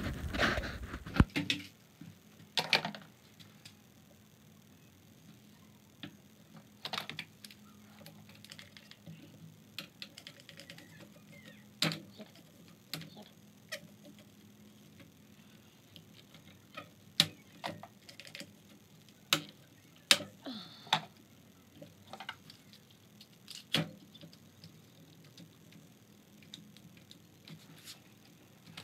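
Irwin Quick-Grip one-handed bar clamps being set and tightened: irregular sharp clicks and knocks from the clamp triggers ratcheting and the plastic jaws and bars striking the wood, with long quiet gaps between.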